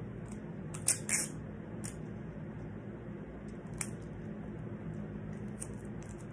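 Steady low room hum with a few short crisp crackles or snips of something being handled, the loudest two close together about a second in and a smaller one a few seconds later.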